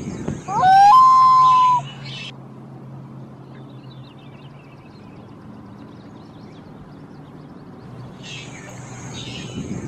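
Common loon giving one short call about a second in: a quick rising note that levels off and is held briefly. Faint high chirps and a low steady hum follow.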